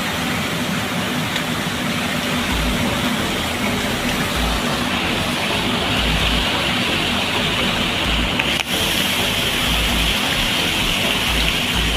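Water spraying and falling from cooling tower distribution nozzles, a steady rush with a brief break a little over two-thirds of the way in.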